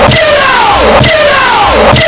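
A man's shouted "Get out!" sound-effect clip, bass-boosted and distorted to clipping, looped about once a second, each repeat sliding down in pitch over a low thump.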